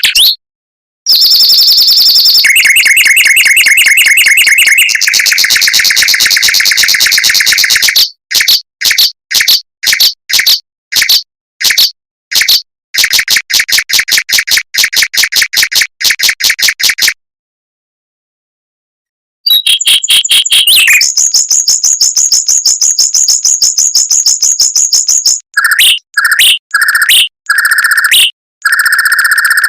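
Mockingbird song: long, tight rolls of very fast repeated high notes, phrase after phrase switching pitch, broken twice by stretches of dead silence.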